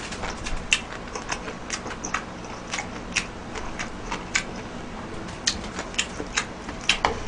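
Close-miked chewing and lip-smacking: an irregular run of short, wet mouth clicks, a few a second, while a mouthful of beef rice bowl is eaten.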